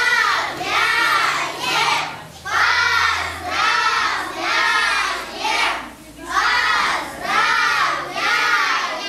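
A class of young children singing together in unison, loudly, in short regular phrases about a second apart.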